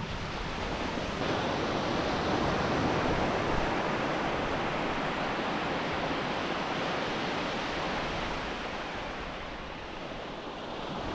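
Ocean surf washing steadily onto a beach, a little stronger in the middle and easing near the end, with wind buffeting the microphone.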